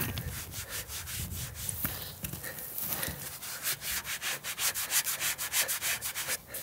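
Work-gloved hand rubbing back and forth over the rusty steel shell of an old air tank, a dry scratchy scrubbing that comes in quick repeated strokes, faster and louder in the second half.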